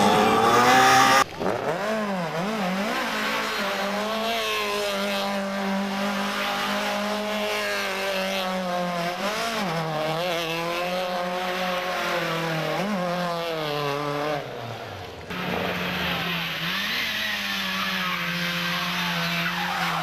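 Music cuts off about a second in. Then a saloon rally car's engine revs up and down over and over as the car spins on tarmac, its tyres squealing. About three-quarters of the way through there is an abrupt cut to another car's engine running more steadily.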